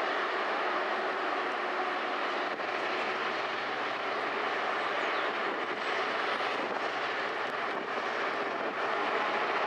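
Class 55 Deltic locomotive's two Napier Deltic two-stroke diesel engines running at low power as it draws slowly forward, a steady dense engine sound.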